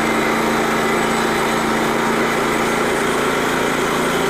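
Small gasoline engine of a portable band sawmill running steadily at a constant speed.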